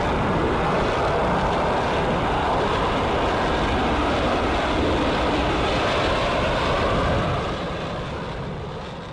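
Jet engine noise of an F-35A Lightning II taking off, its single Pratt & Whitney F135 turbofan giving a steady rush that fades out over the last couple of seconds.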